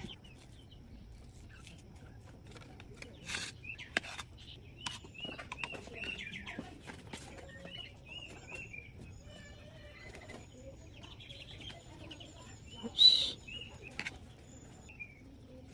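Small birds chirping in short repeated calls, with a few sharp knocks among them, the loudest about 13 seconds in.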